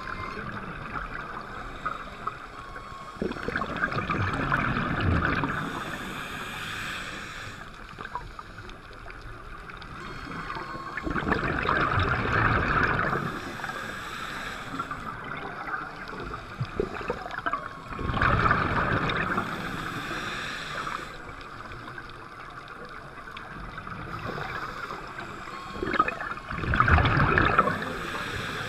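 Scuba regulator heard underwater: a gurgling rush of exhaled bubbles about every seven seconds, four times, with a quieter steady hiss between breaths.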